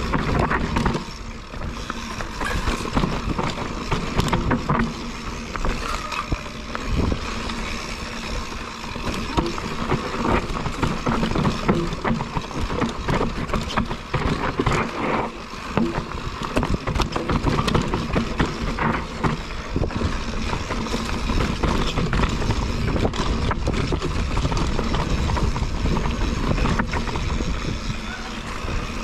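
Mountain bike riding down a dry dirt trail: tyres rolling over dirt and gravel, and the bike rattling with many sharp knocks over bumps, under steady wind noise on the microphone.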